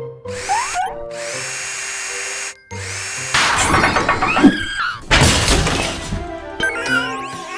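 Cartoon background music, broken by a loud burst of noisy clattering and whirring sound effects from about three seconds in to about six seconds, with sliding pitches mixed in.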